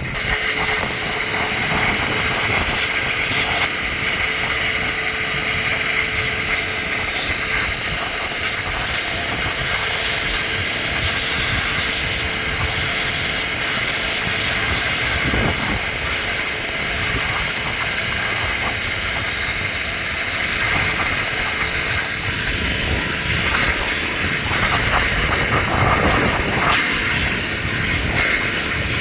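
Vacuum cleaner switched on and running steadily, drawing up the shattered sunroof glass.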